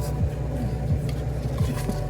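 Background music with a deep bass beat: short bass notes falling in pitch, several a second.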